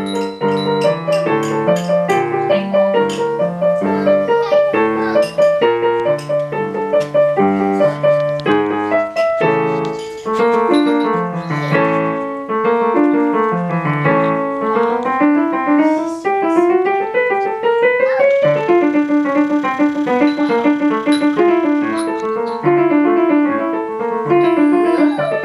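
Digital piano played with both hands: a busy piece of quick, continuous notes. Past the middle a long rising run of notes climbs upward, followed by a repeated figure of notes in the middle register.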